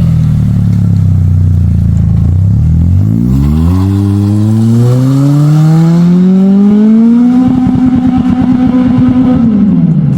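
Toyota Celica's 1.8-litre 2ZZ-GE four-cylinder engine runs steadily, then revs up in one long climb lasting about four seconds. It holds at the top with a rapid stutter as it bounces off the rev limiter, then drops away near the end.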